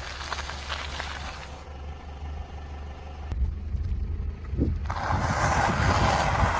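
Car tyre crushing objects on asphalt over the low rumble of the car. A crackling crunch in the first second and a half. About five seconds in, a loud crinkling, crackling crush as the tyre rolls onto a plastic packet and squashes it.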